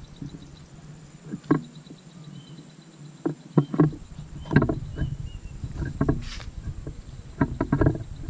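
Irregular dull thumps and knocks, about a dozen, from footsteps and handling of a handheld camera while walking on a concrete footbridge, with a few faint bird chirps.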